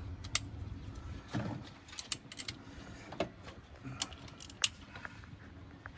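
Irregular metallic clinks and clicks of a wrench working the terminal nuts and cable lugs on a starter solenoid, the sharpest a little over four and a half seconds in.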